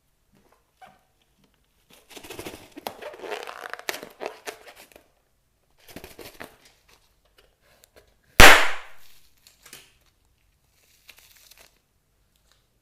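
Slime being squished and stretched, with sticky crackling, then one sharp pop about eight seconds in, the loudest sound.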